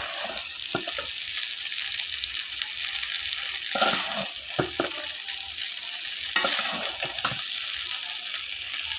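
Noodles sizzling in a hot pan, a steady frying hiss, with a utensil stirring and knocking against the pan in short clusters about a second in, around the middle and near the end.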